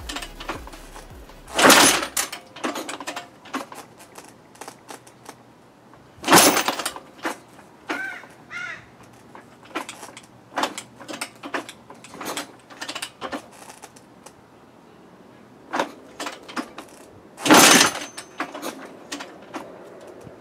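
1985 Honda CR500 single-cylinder two-stroke engine being kick-started: three heavy strokes of the kickstart lever, about two, six and seventeen seconds in, each turning the engine over without it catching. Lighter clicks and knocks of the lever come between the kicks. These are the first kicks of a freshly built engine that has never run.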